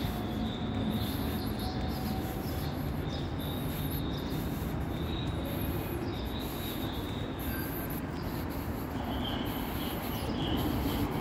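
Steady city street ambience: a low traffic rumble with a faint high-pitched whine that comes and goes.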